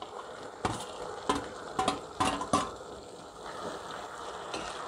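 A metal spoon scraping fried cabbage fritters off a plate into a non-stick pan of simmering sauce, with about five sharp clicks and scrapes in the first three seconds over the sauce's steady bubbling.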